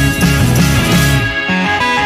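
Background rock music in an instrumental stretch with a steady, pulsing beat; the music thins out briefly a little past a second in.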